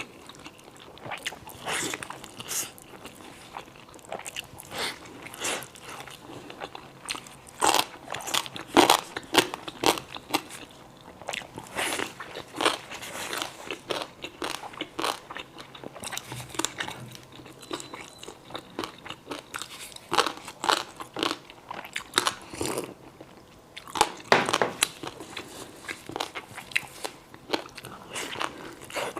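Close-miked mouth sounds of someone eating steamed dumplings and crunchy dried pickled radish: biting and chewing, with irregular sharp crunches. The loudest crunches come about a third of the way in and again near the end.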